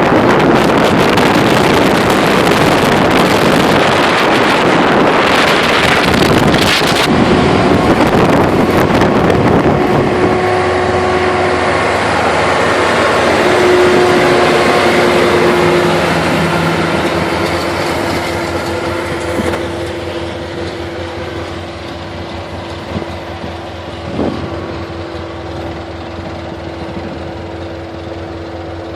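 John Deere 7330 tractor's six-cylinder diesel running with a John Deere 568 round baler, a dense loud rush for about the first ten seconds, then a steady hum with a held whine that grows fainter through the second half.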